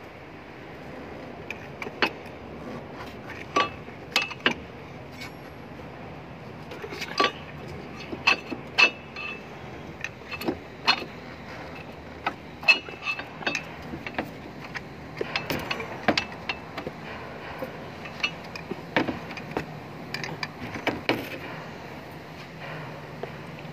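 Irregular metallic clinks and knocks of a long flat screwdriver levering in a Tokico brake caliper, pushing the caliper piston back, over a steady low background hum.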